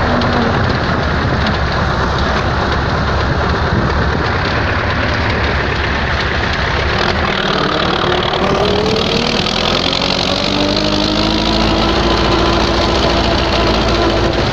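MTZ-80 tractor's four-cylinder diesel engine running while under way, its pitch rising from about halfway through as the engine speeds up.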